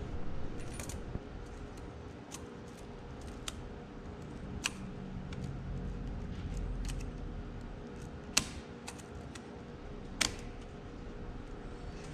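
Light metallic clicks and taps of a tractor transmission's sprag clutch being worked by hand onto its splined shaft in the housing, with two sharper clicks about eight and ten seconds in.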